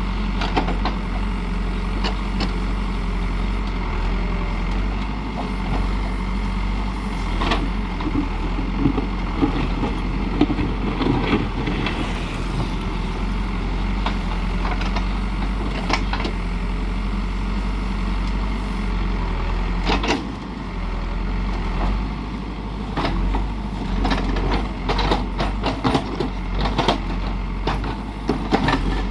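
Diesel engine of a heavy construction machine running steadily, with scattered knocks and clanks that come more often near the end.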